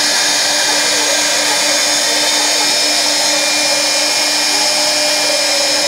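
Homemade CNC router's spindle running at steady high speed while its bit carves wood: a constant whine made of several fixed tones over an even rushing noise, unchanging throughout.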